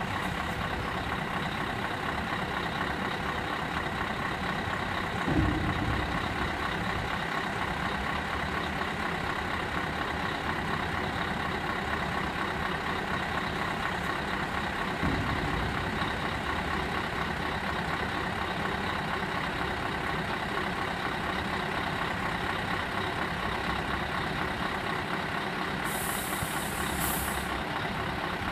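Scania tractor unit's diesel engine running steadily while the hydraulics lower the tipper trailer's body, with a couple of dull knocks as it comes down. A short hiss of air near the end.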